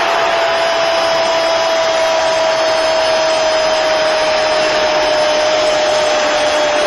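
Stadium football crowd roaring steadily after a goal, heard over an old television broadcast. A single long held note, falling slightly in pitch, runs over the roar.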